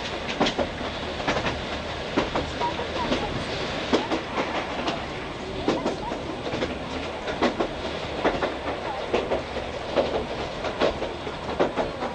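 Old-type JNR passenger coach under way, heard from inside: a steady running rumble with wheels clicking over the rail joints again and again.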